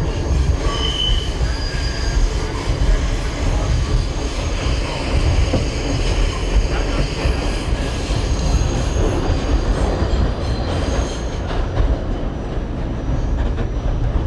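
R68 subway train running on the rails: a steady low rumble with thin, high wheel squeals that come and go.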